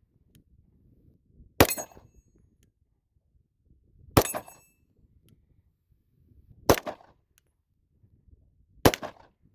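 Ruger RXM 9mm pistol fired four times at a slow, even pace, about two and a half seconds apart. The first two shots are followed by the brief ring of a struck steel plate.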